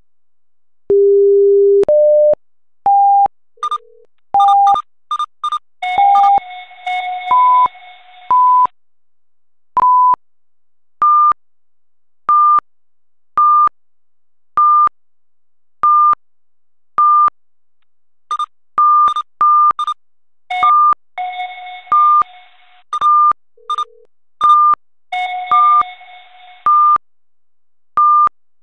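Electronic alert beeps from a live seismograph monitor as an earthquake registers. A long low tone is followed by short beeps that step up in pitch, then a steady high beep about once a second, with a few longer buzzy chords layered in.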